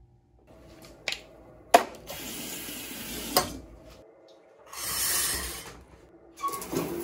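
Sharp clicks of a door latch, then a shower running: water hissing in two stretches of a second or so each, with another click between them.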